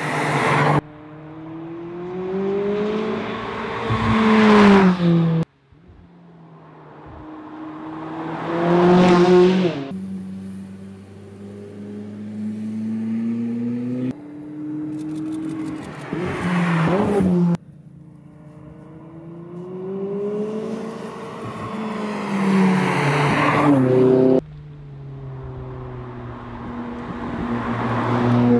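Edited run of pass-bys of a McLaren Sports Series car's twin-turbocharged 3.8-litre V8, each clip cut off sharply. In each one the engine note climbs and swells as the car accelerates toward the microphone, then bends down in pitch as it goes past. A spell of rapid crackles comes about halfway through.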